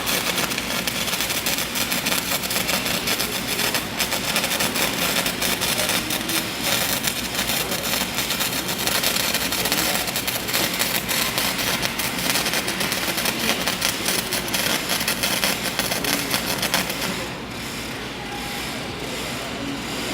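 Welding arc crackling steadily while laying a fillet weld on 1/2-inch steel plate. The crackle stops about three seconds before the end, leaving a quieter steady noise.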